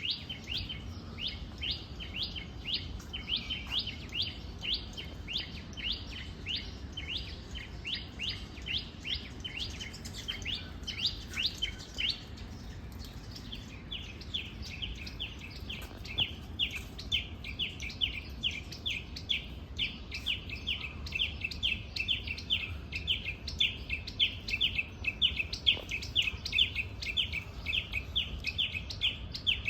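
Birds chirping: a fast, steady series of short, high chirps, about two to three a second, with a pause of a second or so about twelve seconds in before the chirping picks up again.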